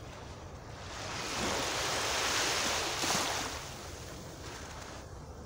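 Small, gentle waves of the Baltic Sea washing onto a sandy beach. One wave rushes up about a second in, breaks with a sharper splash around three seconds in, and dies away, over a low steady rumble.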